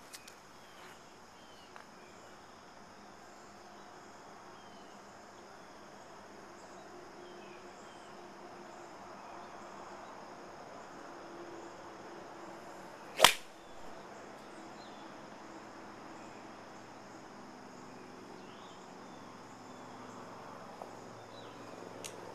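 A SCOR 41-degree wedge striking a golf ball once, a single sharp crisp click a little past halfway through. Steady insect chirping underneath.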